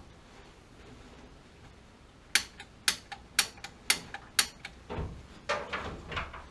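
Five sharp taps about half a second apart, then a few duller knocks and a short rattle.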